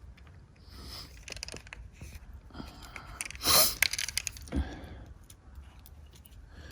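Small clicks and scrapes of a screwdriver working the screws and wires of an ATV gear shifter switch, with one short, loud hissing noise about three and a half seconds in.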